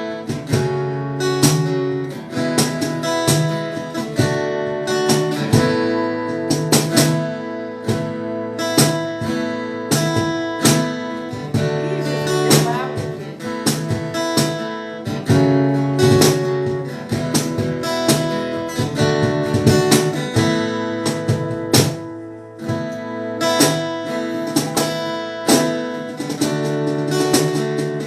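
Acoustic guitar strummed steadily, a chord progression that changes every second or two, played as the lead-in to a worship song.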